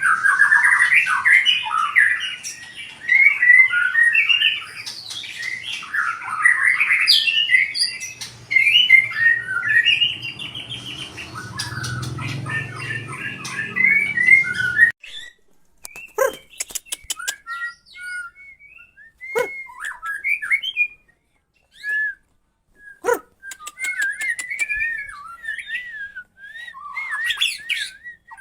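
A white-rumped shama (murai batu) singing. For about the first fifteen seconds it gives a loud, rapid, varied run of whistles and trills. After that it switches to sparser short whistled notes broken by sharp clicks.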